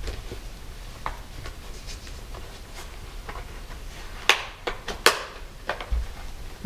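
Light rustling and small clicks as the padded liner is worked out of a Shoei Neotec helmet, with two sharp snap clicks, one a little past four seconds and one about five seconds in, as its small plastic snaps pop loose.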